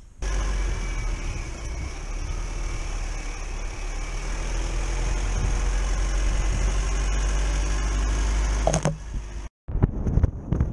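Four-wheel-drive ute driving along a dirt track, heard through a camera mounted low on its side by the front wheel: a steady deep engine and tyre rumble with road noise. It cuts off suddenly near the end, and after a moment's silence wind buffets the microphone.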